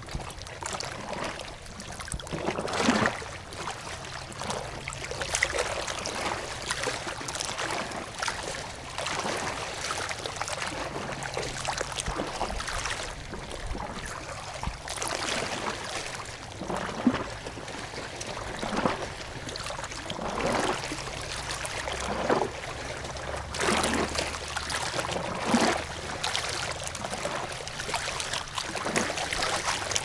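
Running water flowing and splashing, with irregular gurgles and small splashes throughout.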